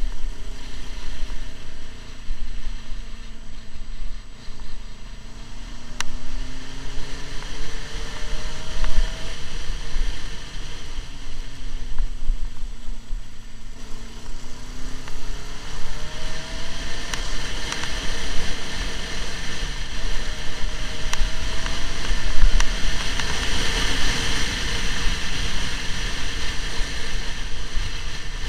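Motorcycle engine running at road speed, its pitch rising and falling as the bike speeds up and eases off, under heavy wind rumble on the microphone.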